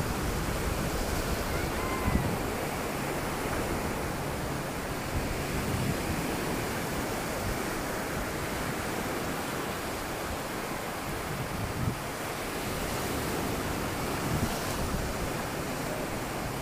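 Sea surf washing onto a sandy beach, a steady rush of noise, with gusts of wind buffeting the microphone now and then.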